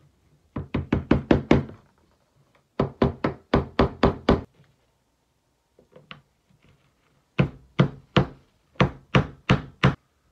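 A soft-faced mallet tapping a cylindrical cap down over a rope end into a hole in a wooden board. The taps come in three quick runs of about seven to nine strikes each, with a pause of a few seconds before the last run.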